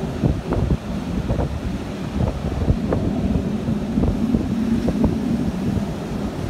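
Wind buffeting a phone microphone carried in a shirt pocket, a loud low rumble with scattered crackles and knocks. A low steady hum comes in about two seconds in and fades out near the end.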